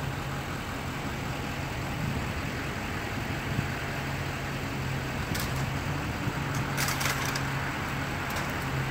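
Truck-mounted crane's engine running steadily with a low hum, while it lowers a rooftop AC unit. A few short high clicks come a little past halfway and again near the end.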